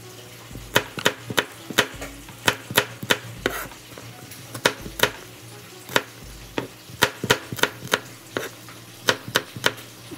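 Kitchen utensils knocking during cooking: a run of sharp, irregular clicks, some in quick clusters, over a steady low hum. It cuts off suddenly at the end.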